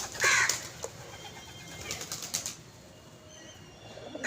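Birds bathing and flapping their wings, with a loud bird call about a quarter second in and another at the very end.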